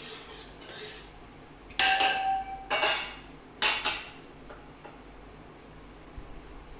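Metal kitchen utensils clattering against a steel cooking pan: three loud clanks about a second apart, the first with a short metallic ring.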